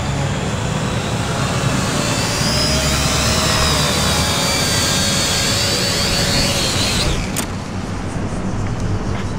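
Small toy quadcopter's electric motors and propellers whining, the pitch wavering up and down as it comes down. A sharp click about seven seconds in, after which the whine dies away and a steady low rumble remains.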